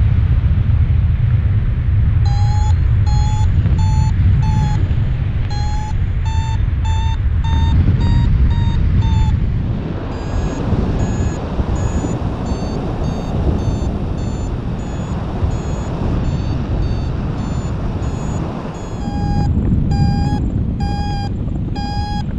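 A paragliding variometer beeping in short repeated tones, about one to two a second, the sign that the glider is climbing in rising air; the beeps go higher in pitch through the middle and drop back lower near the end. Underneath, a steady low rumble of wind on the microphone.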